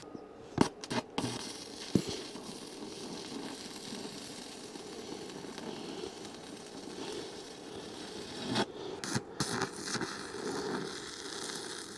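Thermal Arc inverter welder's arc crackling steadily as the steel frame is welded, after a few clicks at the start, with a short break about nine seconds in before the arc is struck again.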